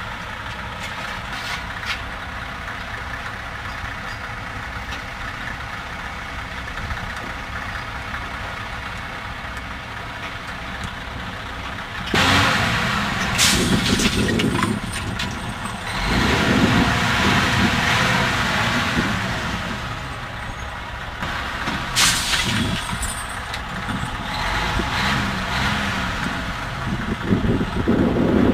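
Diesel semi tractor's engine idling steadily, then running louder and rougher from about twelve seconds in as it is worked, with two short, sharp hisses of air from the truck's air system.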